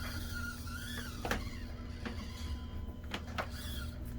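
Axial SCX24 Deadbolt 1/24-scale RC crawler's small electric motor and gearbox whining as it crawls. The pitch rises and falls with the throttle, and there are a few sharp clicks, one about a second in and two close together past the three-second mark.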